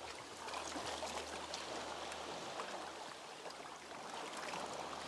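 Soft moving water, a steady wash dotted with many small splashes and drips.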